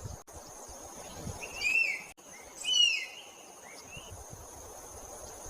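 Forest bird calls: two loud short calls about a second apart, each sliding down in pitch, and a fainter third call just after. Beneath them runs a steady high insect drone.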